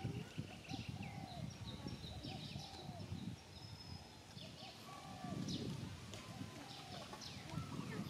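Outdoor bird chirping: many short falling chirps, with short rise-and-fall calls repeating about once a second, over an uneven low rumbling noise.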